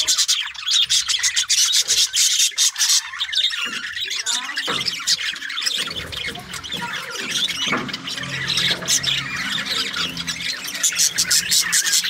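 A flock of budgerigars chattering: many quick, high chirps and squawks overlapping without pause. A faint low hum comes in under them partway through.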